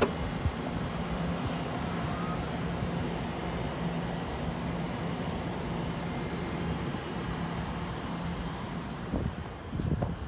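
Wind on the microphone over a steady hum of distant city traffic, with a few bumps near the end.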